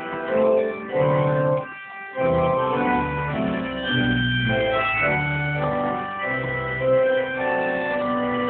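Organ music: held chords changing every second or so, with a brief pause a little under two seconds in.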